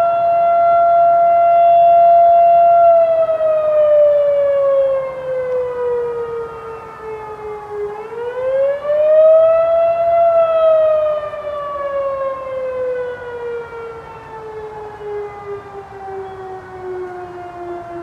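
Fire department warning sirens sounding the alert for a structure fire call. The main siren holds a steady high tone for a few seconds, winds down, climbs back up about eight seconds in, then winds down in a long slow fall. A second, fainter siren tone overlaps around the middle.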